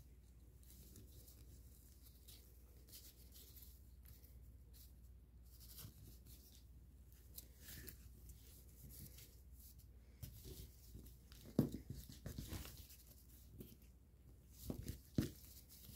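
Foil-backed origami paper rustling and crinkling faintly as it is folded and creased by hand, with a few louder light taps and knocks in the last few seconds.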